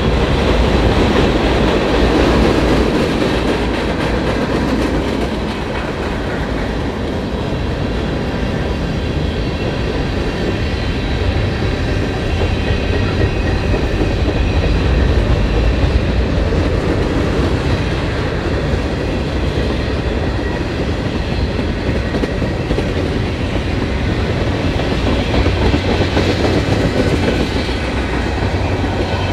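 Freight train's cars rolling past on the rails, a loud, steady run of wheel and car noise with no let-up.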